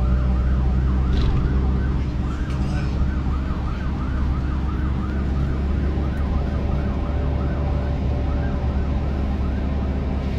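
Police siren on the pursuing traffic police vehicle, wailing rapidly up and down about two to three times a second, over the steady rumble of that vehicle's engine and road noise heard from inside the car.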